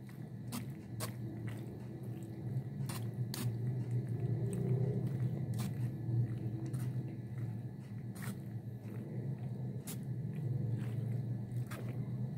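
A metal spoon stirring oiled boiled macaroni in a stainless-steel mesh strainer: the soft squelch of the pasta, with scattered sharp clicks where the spoon knocks the strainer.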